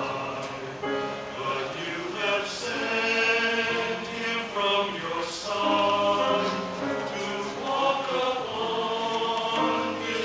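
Mixed church choir of men and women singing a sacred piece in several parts, voices sustained and moving together.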